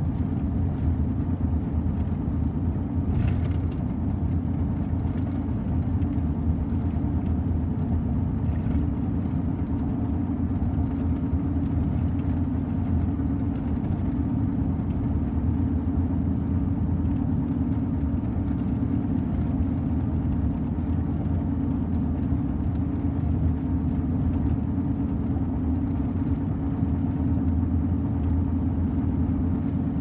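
Steady low road and engine noise heard inside a moving car's cabin.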